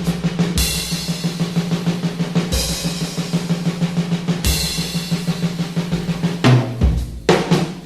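Background music driven by a drum kit, with a steady beat over a held bass line. Crash-cymbal hits come about every two seconds in the first half.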